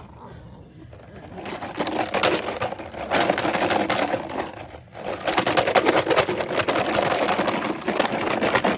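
Ten-week-old Belgian Malinois puppies growling as they tug on rags: a rough, rapid rattling growl that starts about a second and a half in and breaks off briefly near the middle.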